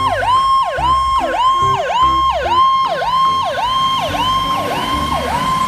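Fire truck's electronic siren, its pitch dipping sharply and sweeping back up about twice a second in a fast repeating cycle.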